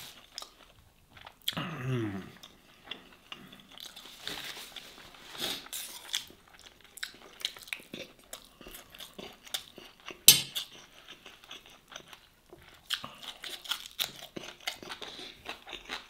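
Close-miked eating: a person chewing and crunching mouthfuls of grilled masgouf fish and rice eaten by hand, with wet mouth clicks and smacks. A single sharp click a little after ten seconds is the loudest sound.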